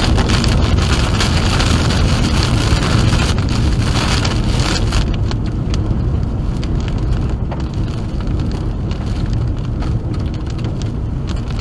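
Wind-driven rain pelting a moving car, over the low rumble of the road. The heavy hiss eases about five seconds in, leaving scattered drops ticking on the car.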